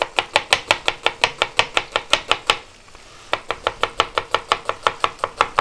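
Chef's knife slicing a red onion into thin julienne strips on a plastic cutting board: quick, even cuts about six a second, with a brief pause about halfway before the chopping resumes.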